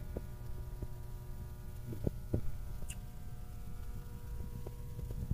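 Steady electrical hum from the powered panel equipment, a low drone with several thin steady tones above it. A few faint clicks are scattered through it, about two seconds in.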